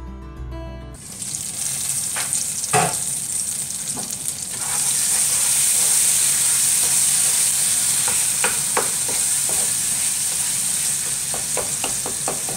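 Onion-tomato masala frying in oil in a pot, sizzling while a spatula stirs and scrapes it, with occasional short knocks of the spatula against the pan. The sizzle grows louder about five seconds in. Guitar music plays for the first second and then cuts off.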